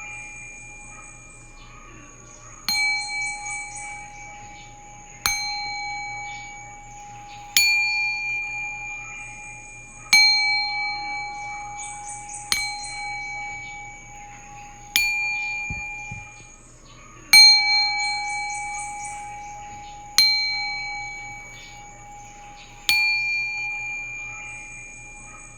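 Singing bowl struck about every two and a half seconds, each strike ringing out with a clear tone and fading before the next.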